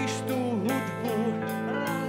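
Waltz music playing: a melody over a steady beat in three.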